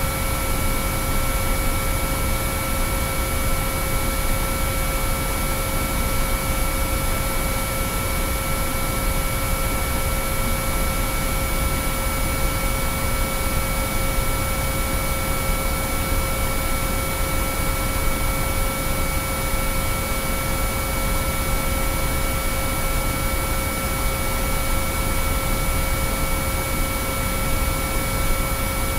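Binaural-beat sine-wave tones: several steady pure pitches held unchanging over a constant hiss of white noise.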